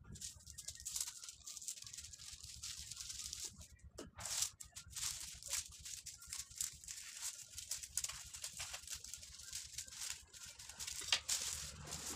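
Sheets of holographic foil paper crinkling and rustling as they are handled, pressed flat and folded, with irregular crackles throughout.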